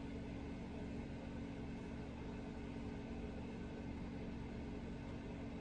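Steady low hum with an even hiss: constant background room noise, without distinct knocks or clicks.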